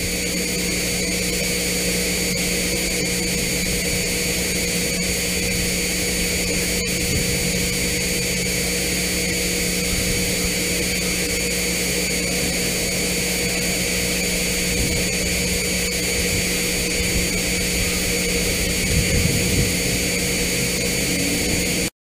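Steady rushing noise with a constant hum and thin whine beneath it, unchanging throughout: the ambient audio feed of an outdoor ranch webcam.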